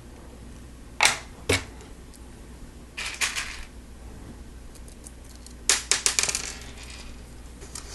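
Plastic Lego Technic parts clicking and clattering as they are handled: two sharp clicks about a second in, a short rattle around three seconds, and a quick run of clicks near six seconds.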